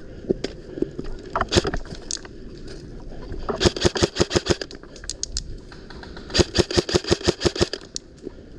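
Airsoft rifle firing: a few single shots, then two rapid bursts of about ten shots a second, the second about two seconds after the first.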